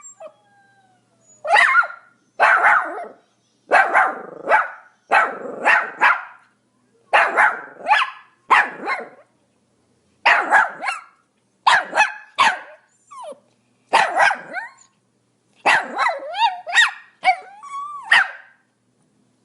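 Pomeranian barking over and over: short, high-pitched yaps in quick runs of two or three, with brief pauses between the runs.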